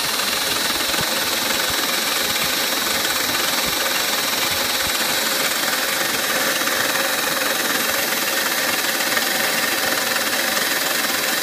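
CNC milling machine with its spindle running and an end mill cutting clear plastic in a clean-up pass after the rough cut, a steady high whine over even cutting noise.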